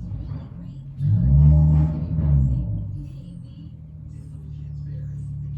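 1992 Ford Ranger's engine running: revved once, rising and falling over about two seconds, then settling to a steady idle.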